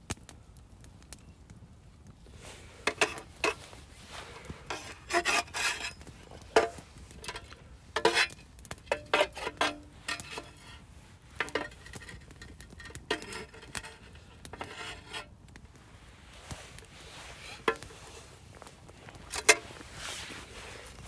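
Cooking utensils scraping, rubbing and clinking against cookware in irregular bursts of handling.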